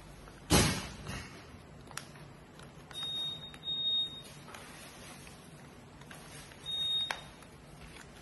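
Origami paper being handled and folded: a sharp slap about half a second in, a lighter one just after, then rustling and creasing strokes of the paper, two of them carrying a brief thin high tone.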